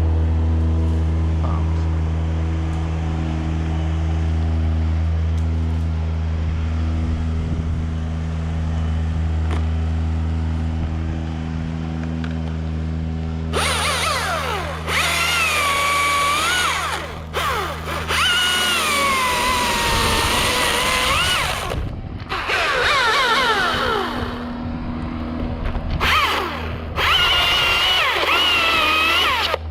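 A chainsaw cutting in bursts through the second half, its pitch sagging and rising with the load and stopping briefly several times. Before that there is only a steady low engine hum, which runs on under the first cuts.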